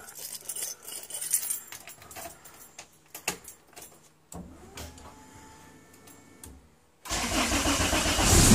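Keys jangling and clicking at the ignition, then about seven seconds in a Honda B-series four-cylinder with coil-on-plug ignition starts up and runs, getting louder over its first second before settling.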